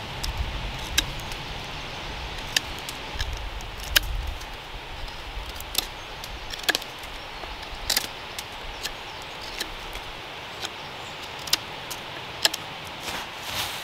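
A puukko-style knife whittling a green wood stick: short sharp cuts and snicks at an irregular pace, roughly one a second. A low rumble runs under the first few seconds.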